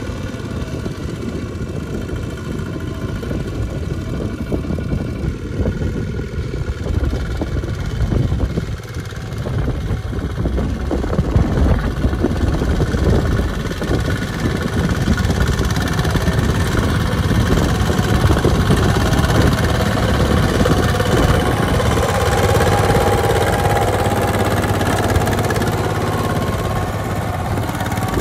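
Single-cylinder diesel engine of a two-wheel walking tractor running steadily under load as it hauls a trailer of rice sacks through mud. It grows louder about a third of the way in and stays loud.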